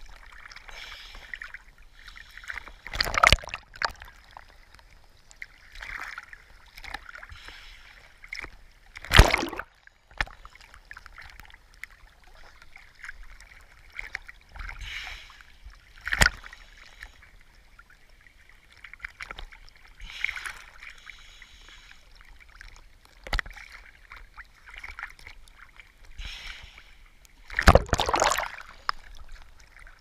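Seawater lapping and sloshing against a waterproof action camera bobbing at the surface, with five sharp splashes or knocks several seconds apart as waves hit the housing.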